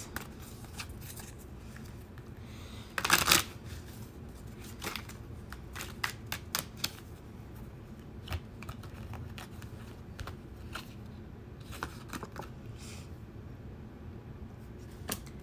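A deck of tarot cards being shuffled by hand: scattered soft snaps and ticks of card on card, with one louder burst of card noise about three seconds in.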